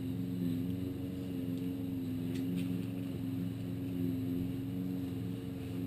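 A steady low mechanical hum, like a motor running, with a couple of faint light clicks about two and a half seconds in.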